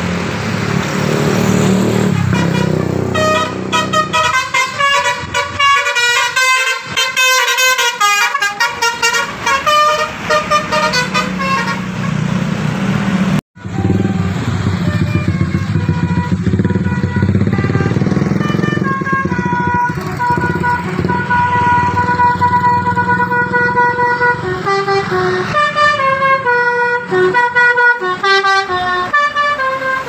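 Indonesian tour bus telolet horn, a multi-tone musical air horn, playing quick runs of stepping notes over a steady low engine rumble. The sound drops out abruptly about halfway through, then the horn resumes with longer held notes and another fast run near the end.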